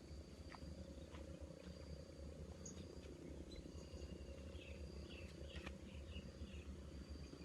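Faint riverside ambience: a thin high insect note comes and goes over a low steady rumble, with a few soft clicks and faint chirps.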